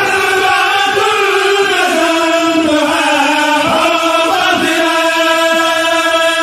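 Voices chanting a Mouride khassida, an Arabic religious poem, in one continuous line. The pitch wavers and bends through a phrase, then settles into a long held note about four and a half seconds in.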